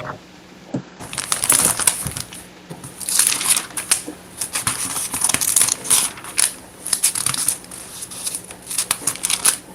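Pages of a thin-paper Bible being leafed through, an irregular run of papery crinkles and rustles.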